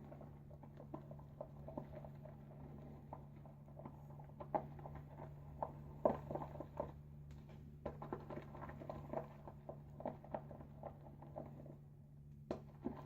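Badger-hair shaving brush whipping soap lather in a bowl: a faint, irregular wet patter of quick soft clicks and squelches.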